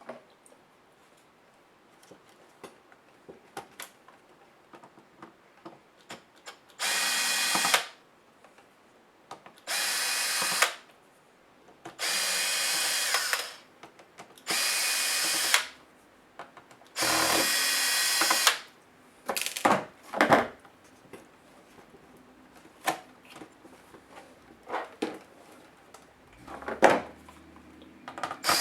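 Cordless electric screwdriver running in five short spells of about a second and a half each, backing screws out of a laptop's case. Small clicks and light knocks of handling come in between.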